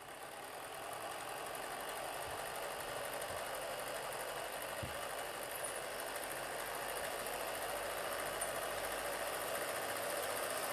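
Film projector running with a steady whir and a fast, even clatter of the film mechanism.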